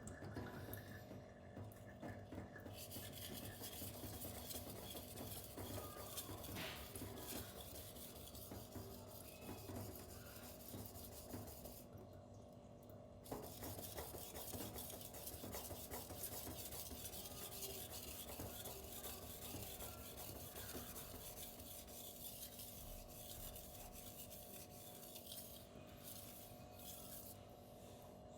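Steel knife blade stroked across a 1000-grit silicon carbide whetstone: a steady, muted scraping that breaks off briefly twice, near the start and about twelve seconds in.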